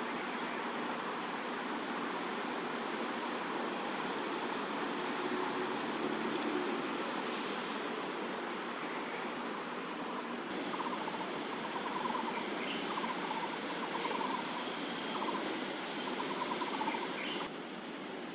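Steady outdoor background noise with small birds chirping: short, high notes repeating about once a second in the first half, and a lower pulsing call in the second half.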